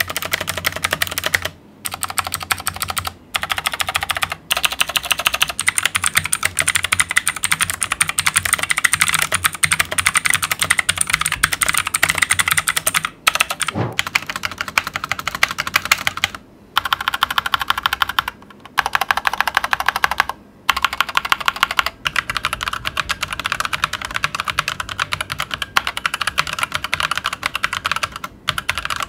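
Fantech Atom mechanical gaming keyboards being typed on fast: dense clicking keystrokes in several short typing-test runs, each cut off by a brief silent gap.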